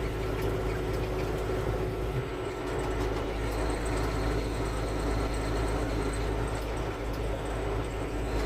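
Steady engine drone and road noise of a semi truck heard from inside the cab while driving down the highway.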